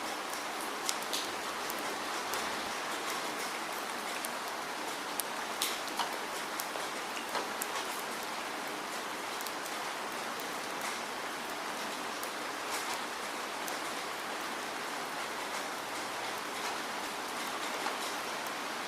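Steady rainfall, an even hiss with scattered sharp ticks of single drops landing close by, more of them in the first half.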